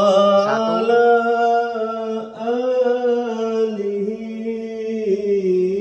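Sholawat, Islamic devotional chanting, played through a newly installed Sound Queen 10-inch loudspeaker as a sound check: a voice sings long, gliding, ornamented notes over a steady held low note.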